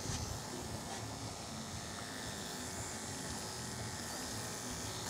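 Andis two-speed electric dog clippers running with a steady low hum while clipping the dog's coat.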